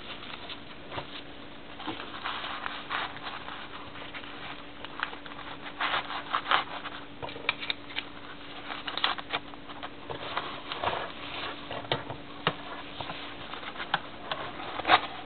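Hands handling paper-wrapped adhesive bandage and gauze packets and rummaging in a small fabric first aid pouch: irregular rustling, rubbing and small clicks. A faint steady hum runs underneath.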